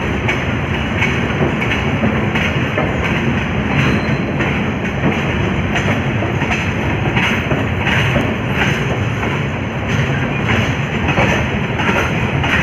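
Train rolling out of a station, its wheels clacking over rail joints and points at an uneven pace over a steady rumble, heard from an open coach doorway.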